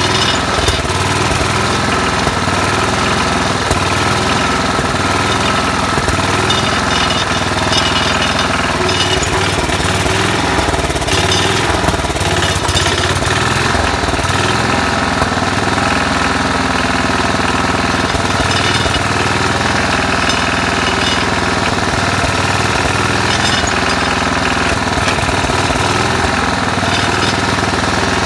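Cast-iron Tecumseh HH120 single-cylinder engine of a 1968 Sears Suburban 12 garden tractor running steadily.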